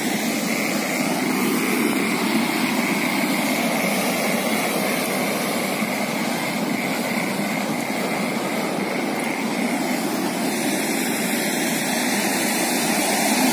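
Muddy floodwater of a hill torrent rushing and swirling past concrete walls, a steady rushing noise.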